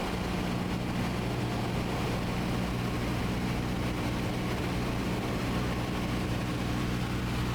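Cessna 172's four-cylinder piston engine droning steadily as heard through the headset intercom feed: a constant low hum with a few steady pitched lines under a wash of hiss.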